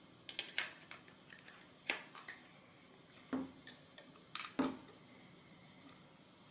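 Scattered sharp clicks and taps of a screwdriver and pliers against the battery box and chassis plate while small mounting nuts are tightened onto their screws, in a few quick clusters with quiet in between.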